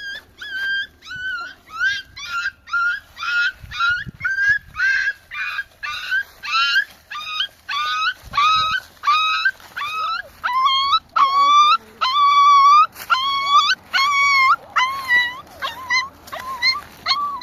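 A puppy crying in a steady run of short, high whimpers, about two a second; about ten seconds in the cries drop lower in pitch and grow louder.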